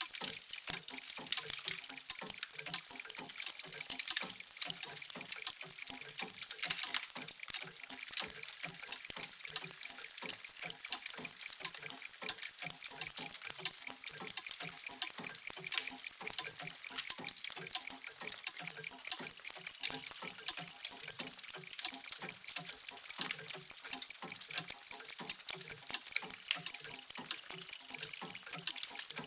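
Many mechanical clocks ticking at once, their ticks overlapping into a dense, steady clatter of many clicks a second.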